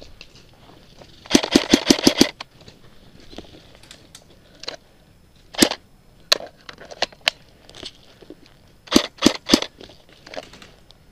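Airsoft electric rifle (G&G F2000) firing: a rapid string of about eight shots about a second in, a couple of single shots in the middle, and a quick burst of four near the end.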